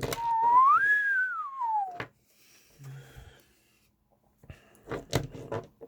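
A single whistle-like tone that glides up and then down in pitch over about two seconds, followed by a few faint clicks.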